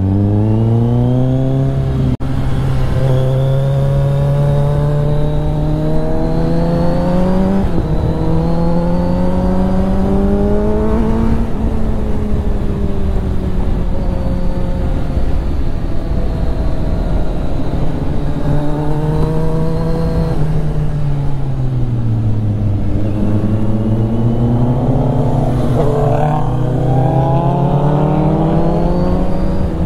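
Kawasaki Z900 inline-four engine and exhaust heard from the rider's seat, pulling up through the gears: the pitch climbs, falls back at shifts, sinks when the throttle is rolled off around the middle and again a little past two-thirds through, then climbs again near the end. Wind rushes on the microphone underneath.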